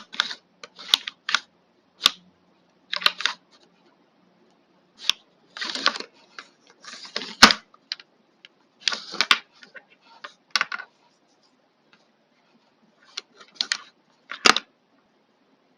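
Hard plastic parts of a Philips Multigroom trimmer's casing being handled and fitted together: irregular clicks, taps and short scrapes, with sharp snaps about seven and a half and fourteen and a half seconds in.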